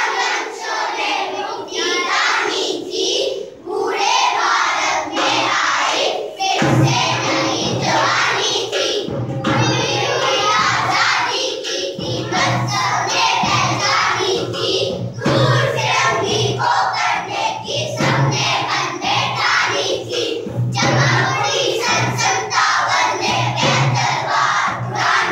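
A group of young children singing together in unison. Backing music with a steady low part comes in about six and a half seconds in and carries on under the singing.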